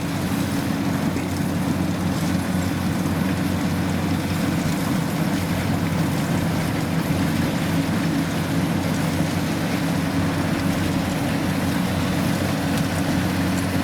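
Kubota DC-93 combine harvester's diesel engine running steadily with a low, even drone.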